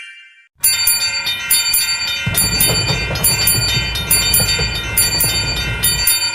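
Railway crossing warning bell ringing in rapid, even strikes, with a low rumble joining about two seconds in.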